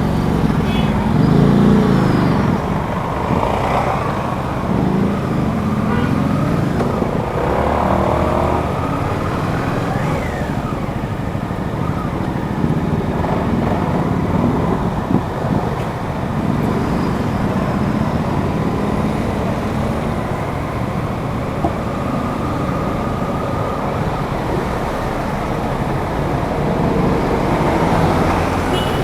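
Suzuki GSX-8S's 776 cc parallel-twin engine running under way, its revs rising and falling repeatedly, over steady road noise.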